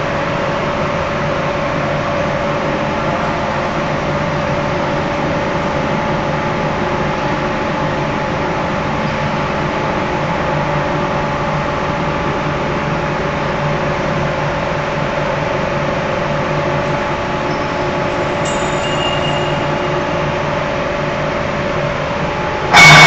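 CNC wire-cut machine running with a steady hum made of several constant tones. Near the end, a sudden, much louder noise starts.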